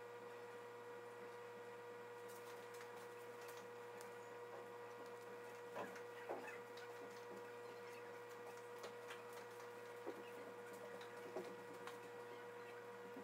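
Chinese mantis chewing a wolf spider: faint, irregular crunching clicks, a few louder than the rest, over a steady electrical hum.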